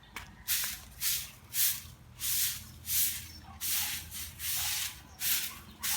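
A broom sweeping the ground in repeated swishing strokes, a little under two a second.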